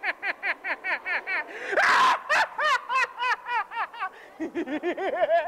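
A person's high-pitched laugh: a long, fast string of ha-ha syllables, each rising and falling in pitch, with a louder shriek about two seconds in and a brief break about four seconds in.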